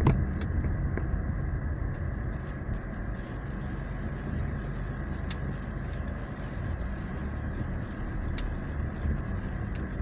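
Steady low rumble of engine and tyre noise inside a car's cabin as it drives slowly along a street, with a few faint ticks.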